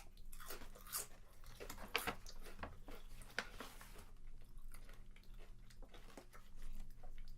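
Potato chips being bitten and chewed with loud crisp crunches, thickest through the first half, then fading to softer chewing.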